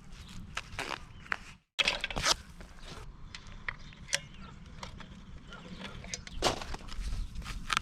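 Scattered clicks, knocks, scrapes and rustles of hand work on the sill, with a short gap in the sound about a second and a half in.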